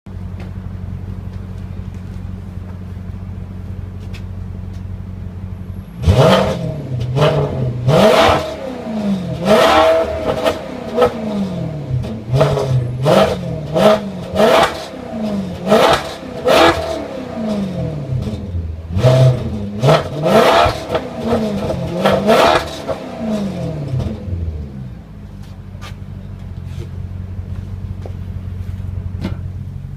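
Maserati Quattroporte exhaust idling steadily, then a long run of quick throttle blips, the revs rising and falling about once a second for some twenty seconds, before settling back to idle.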